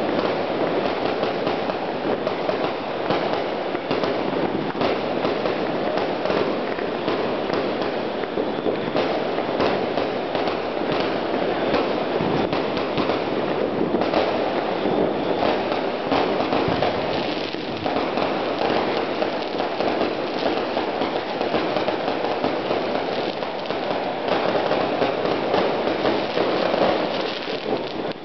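Many fireworks and firecrackers going off at once: a dense, unbroken crackle of overlapping pops and bangs at a steady loudness, with no pause.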